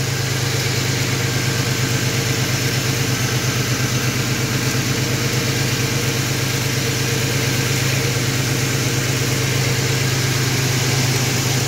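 Chevy Celebrity's 2.8-litre multi-port fuel-injected V6 idling steadily, with an even low pulse and no revving, while its newly fitted power steering pump draws down fresh fluid.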